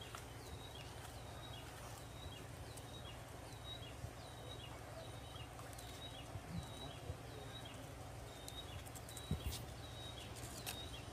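A small animal chirping: a short, high, falling chirp repeated about twice a second, over a faint steady outdoor background with a few faint clicks.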